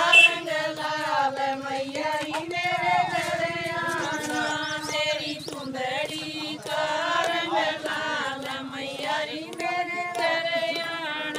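A group of women singing a Haryanvi devotional bhajan together, unaccompanied, in unison, with hand claps keeping time.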